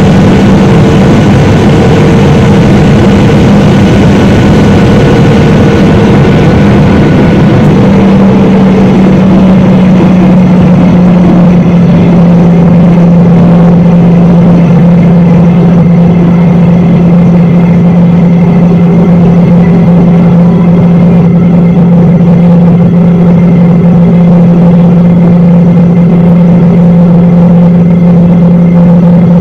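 Cabin noise inside a Boeing 737-800 descending toward landing: the steady drone of its CFM56 jet engines and the rushing airflow, loud and continuous. Its low hum drops slightly in pitch about ten seconds in as the higher hiss eases.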